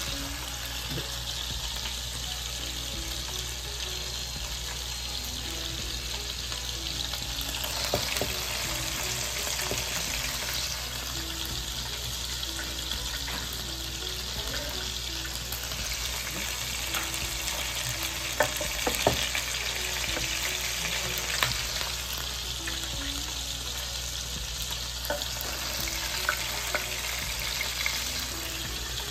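Hamburger patties topped with cheese sizzling steadily in a skillet of hot fat, with a few sharp clicks of a metal spatula against the pan and tray as the patties are lifted out.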